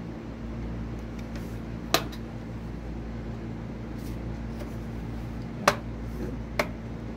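Three sharp clicks of small hard parts being handled while a laptop is taken apart, the second one the loudest, over a steady low electrical hum.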